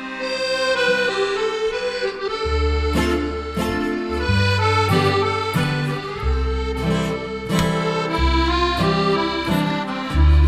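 Background instrumental music: a melody of held notes over a low bass line that comes in about two and a half seconds in.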